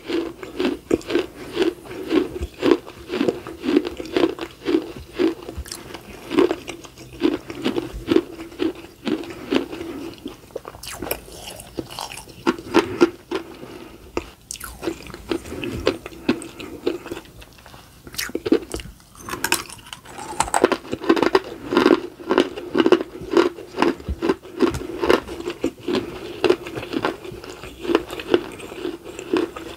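Close-miked chewing of a baked clay pot: a steady run of crisp crunches as the dry clay is bitten and ground between the teeth, thinning out briefly around the middle.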